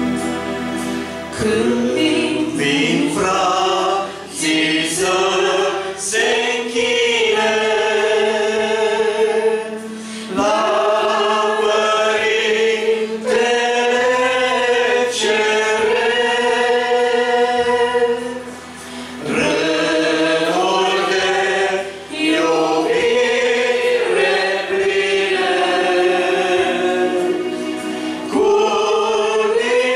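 A congregation singing a Romanian hymn together in long held phrases, with brief pauses between lines.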